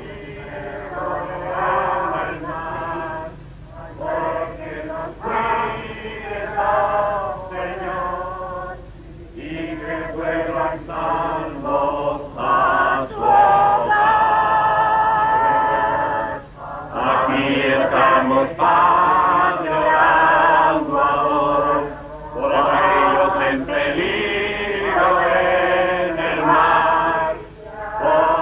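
Church choir singing a slow hymn, phrase after phrase with short breaths between.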